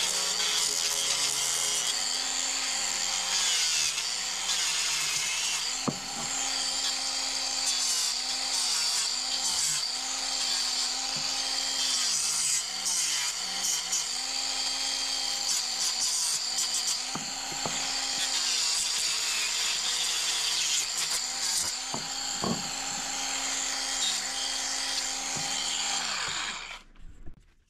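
Small high-speed electric power tool working wood, its motor whine dipping in pitch now and then as it is pressed into the work, then switched off near the end.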